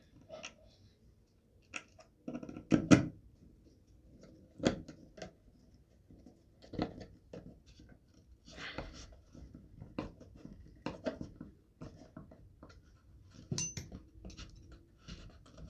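Irregular clicks, taps and knocks as a screwdriver and small parts are worked against a plastic rifle buttstock, the loudest knock about three seconds in.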